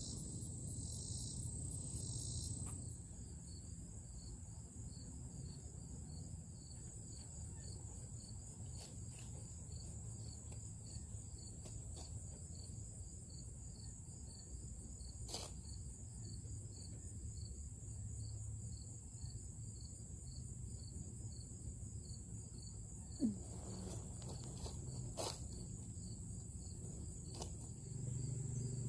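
Outdoor summer insect chorus, typical of crickets: a steady high-pitched trill with a regular pulsing chirp running underneath. One brief, sharp, louder sound comes late on, along with a few faint clicks.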